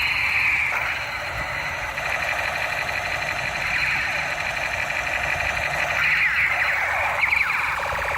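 Electronic sound effects from a battery-powered toy machine gun: a continuous siren-like warbling, with quick falling sweeps repeating near the end.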